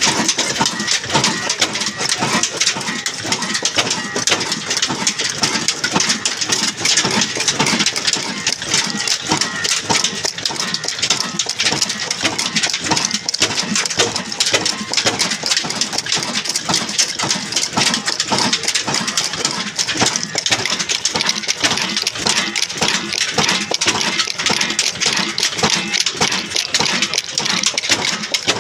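Old 22 hp desi diesel engine running steadily, its fast, even mechanical clatter unchanged throughout.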